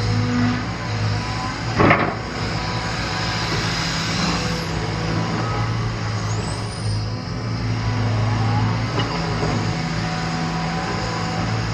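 Cat 320 Next Gen excavator's diesel engine running at a steady speed, with one sharp knock about two seconds in.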